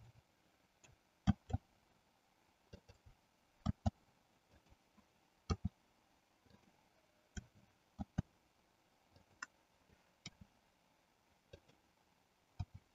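Computer keyboard keys and mouse buttons clicking: sparse sharp clicks, often in quick pairs, every second or two.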